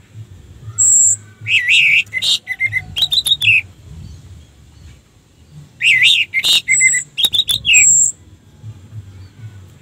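Orange-headed thrush singing: two loud bursts of varied song, about a second in and again near six seconds in, each mixing high thin whistles, warbled notes and quick clicks.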